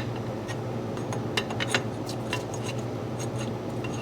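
Light metallic clicks and taps of a brake pad being pushed and worked into a Honda Gold Wing's rear brake caliper against the rotor. The clicks are scattered through the first half of the sound, with a steady low hum underneath.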